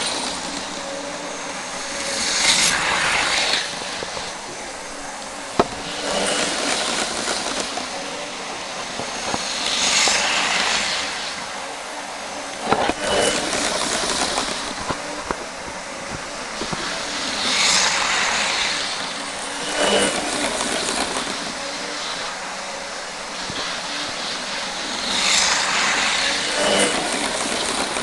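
Hornby OO gauge model trains, a Class 390 Pendolino and a Class 43 HST running on DC, whirring and rattling along the track. The sound swells loud several times as a train passes close by, with a few sharp clicks over the rail joints and points.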